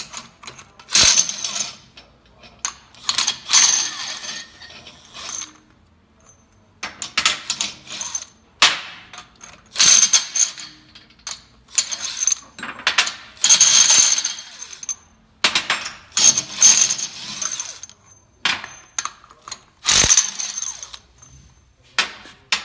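Cordless drill with a socket spinning loosened nuts off the cylinder-head studs of a Wanner Hydra-Cell T100 pump, in about ten short runs of roughly a second each, with short metal clicks between the runs.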